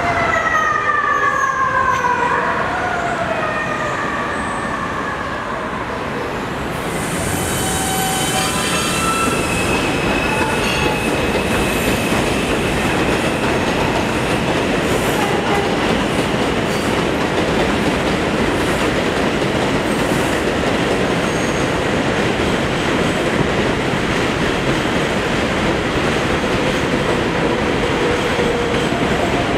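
R142A subway trains running on elevated steel track: a steady rumble and clatter of wheels on rails, with thin high wheel squeal above it from about a quarter of the way in. In the first few seconds a falling wail fades out.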